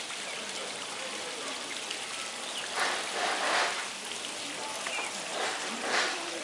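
Steady hiss of rain falling on a wet street, with two louder swells of noise about three and six seconds in.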